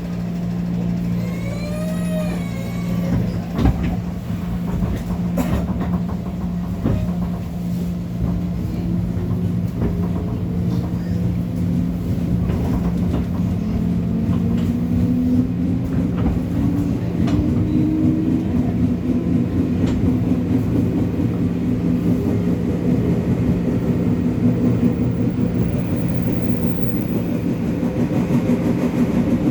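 JR 205 series electric train motor car heard from inside, pulling away from a station and accelerating: the traction motors hum steadily and their whine rises in pitch as speed builds. A brief warbling tone sounds about two seconds in, and a few sharp knocks come in the first seconds.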